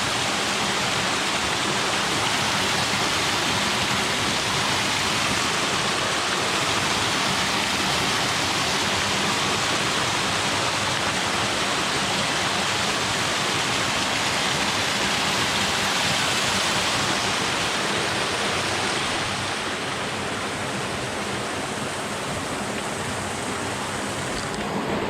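Mill Creek Falls, a small waterfall on a stream, rushing steadily with a constant splash of falling water, easing slightly near the end.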